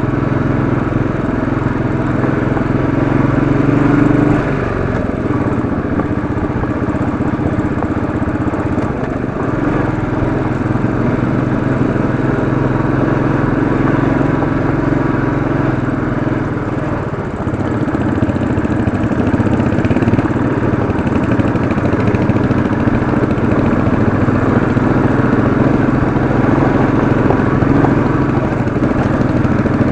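Royal Enfield Classic 500's single-cylinder engine running steadily under load on a steep dirt climb, easing briefly a little past halfway.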